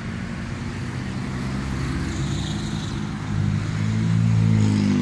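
Road traffic: a motor vehicle's engine running close by, its low hum growing louder about three seconds in as it comes near.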